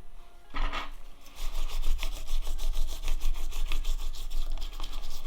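A brush scrubbing plastic parts of a Nokia 2110 phone in quick back-and-forth strokes, several a second.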